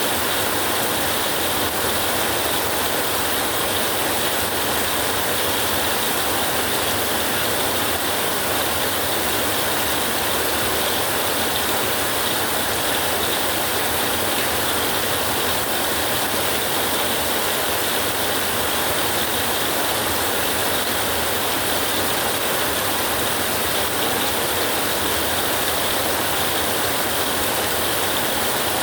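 Rain falling steadily, a dense even hiss that holds at one level throughout, with no thunder.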